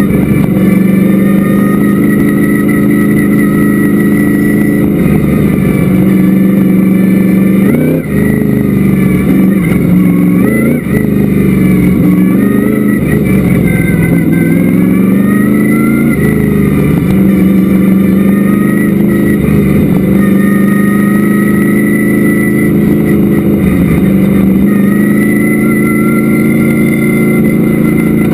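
Vintage modified race car's engine heard from inside the cockpit, running hard at speed, its revs falling and climbing again every few seconds, with two brief sharp drops about eight and eleven seconds in.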